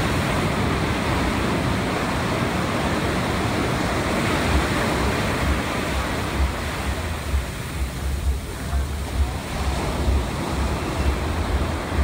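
Ocean surf breaking and washing up the beach, a steady rushing wash. In the second half, wind buffets the microphone in gusts.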